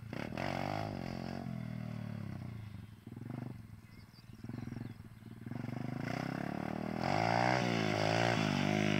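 Dirt bike engine revving up and falling back again and again as the bike rides toward the listener, quieter for a couple of seconds in the middle. It grows loudest near the end, the throttle worked quickly up and down as the front wheel lifts in a wheelie.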